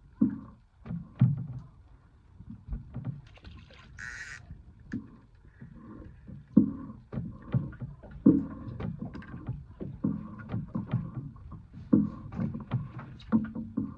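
Water slapping against a small boat's hull in a string of irregular low knocks, more frequent in the second half, with a short hiss about four seconds in.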